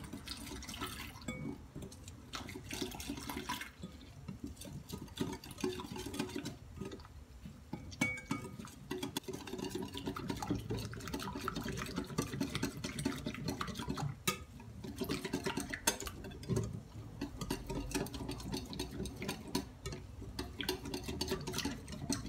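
Water poured into flour in a glass bowl while a wire whisk stirs, then the whisk beating the thin flour-and-water batter against the glass bowl, a rapid continuous wet stirring.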